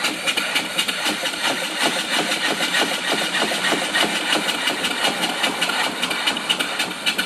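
Live steam mill engine with a flyball governor (single cylinder, 3-inch bore, 4-inch stroke) running steadily under steam. Quick, even exhaust chuffs over a steady hiss of escaping steam.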